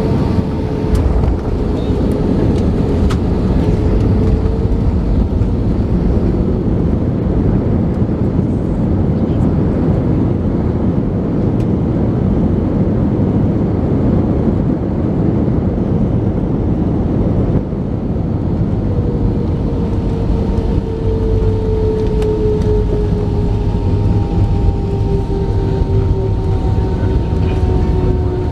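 Steady, loud engine and airflow noise inside the cabin of an Airbus A319 on approach. A thin whine slowly falls in pitch near the start and again through the second half.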